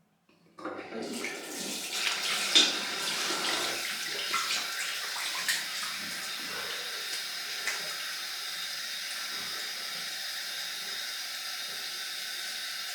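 Bathroom sink tap turned on about half a second in, water splashing with a few sharp knocks for the first several seconds, then running in a steady stream.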